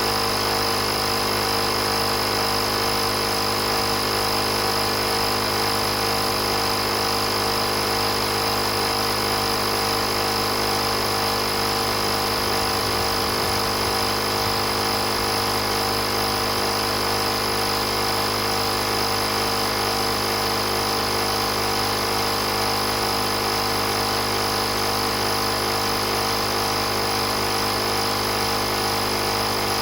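Oasser portable 12V air compressor (tyre inflator) running steadily, a constant motor-and-piston hum with several fixed tones.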